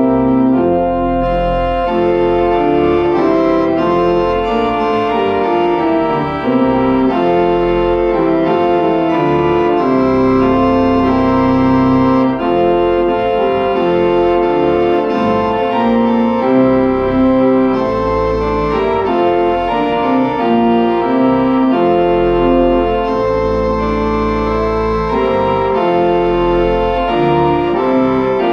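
Church organ playing a hymn: sustained full chords that change every second or so over low pedal bass notes, steady in loudness.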